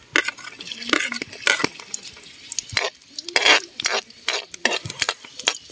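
Metal ladle clinking and scraping against a plate and a metal wok as garlic is pushed into hot cooking oil, with a short burst of sizzling about three and a half seconds in.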